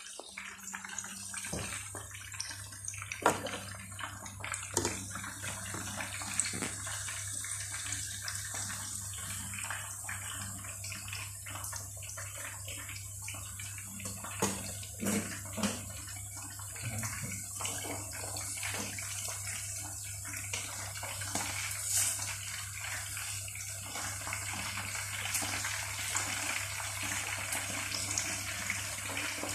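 Chicken pieces deep-frying in hot oil in a pot, a steady sizzle dotted with crackles and a few sharper pops.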